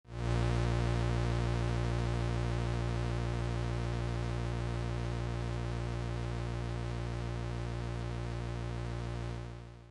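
A steady, low electronic drone with many overtones and a faint, fast, even flutter, presented as Jupiter's radio emissions converted into sound. It slowly softens and fades out near the end.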